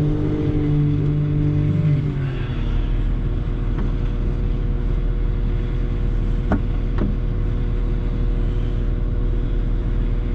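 CAT loader's diesel engine running at high revs, dropping in pitch about two seconds in as it revs down, then running steadily, with a few short clicks.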